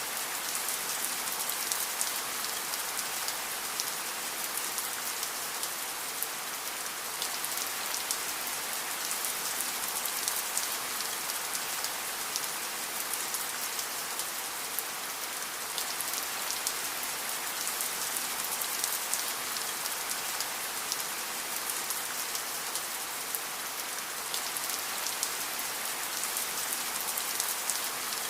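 Steady rain falling, a constant hiss with many small drops pattering on a surface.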